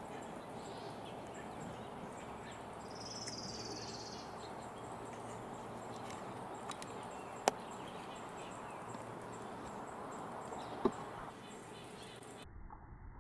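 Steady outdoor background hiss with one short, high, buzzy bird call about three seconds in, slightly falling in pitch, and two sharp clicks later on.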